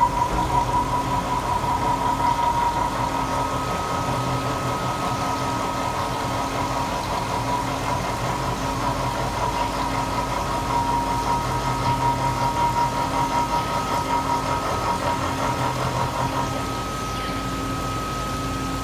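Eight-insert face mill cutting 304 stainless steel on a milling machine: steady machining noise with a rippling, pulsing loudness and a sustained high tone. Near the end the tone fades and the sound drops slightly in level.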